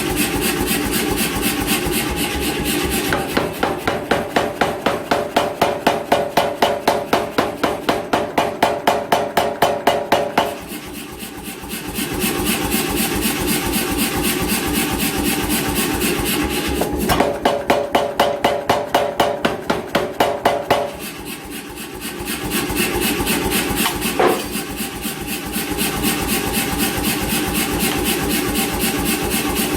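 An 88 lb C41 power hammer running, its motor going steadily, with two runs of rapid, evenly spaced blows from the ram, one of about seven seconds and a shorter one of about four, as it forges a rounding hammer head.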